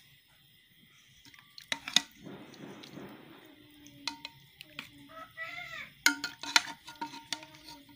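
Spoon clinking and scraping against a pressure cooker pot and a clay plate while potato and meat curry is ladled out. There are sharp clinks about two seconds in and again around six seconds, with a short wet sloshing stretch between them.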